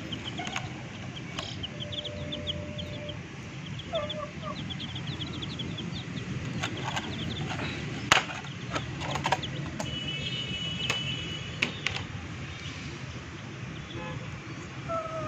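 Domestic chicks peeping in quick series of short high chirps, with a few lower clucks. Several sharp knocks come in the middle, the loudest about eight seconds in, over a steady low hum.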